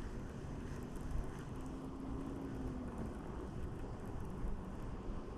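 Low, steady wind rumble on the microphone, with a faint steady hum from a distant motor for about a second and a half in the middle.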